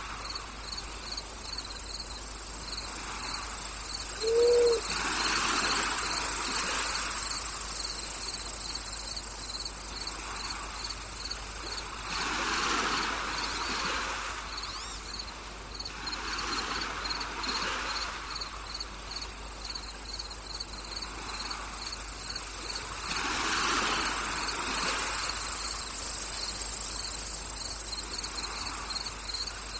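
Crickets chirping in a steady, even rhythm over a continuous high insect drone, with a soft hiss that swells and fades every few seconds. A brief low note sounds about four seconds in.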